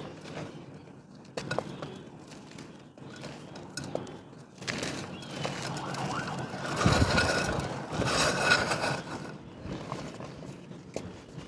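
Dry mud shapes being crushed and crumbled: scattered gritty crunches and small cracks. A louder, denser stretch of crumbling comes in the middle, with a steady high tone heard faintly behind it.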